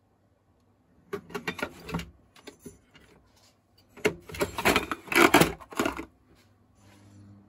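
Rapid clicking and rattling of hard parts being handled, in two bursts: one about a second in and a longer, louder one from about four to six seconds.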